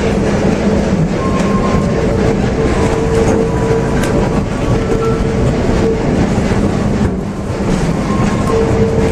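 Steam-hauled heritage passenger train running, heard from aboard an open-sided coach: a steady rumble and rattle of the coaches on the rails. A steady-pitched tone comes and goes several times over it.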